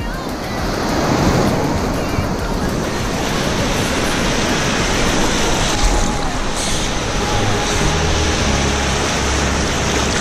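Sea surf breaking and washing steadily, picked up close with the microphone at the water's surface so the rushing water fills the sound.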